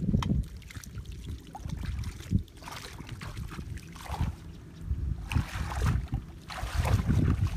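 Shallow muddy water sloshing and splashing as legs wade through it, heaviest in the second half, over a low rumble of wind on the microphone.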